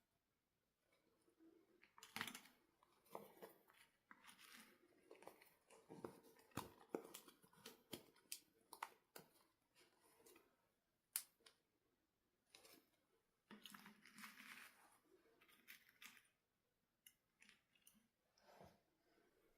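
Faint handling sounds of toy doll packaging being opened: scattered sharp clicks, snips and short rustles of plastic and cardboard. A single sharp click about eleven seconds in is the loudest, and a longer rustle follows a couple of seconds later.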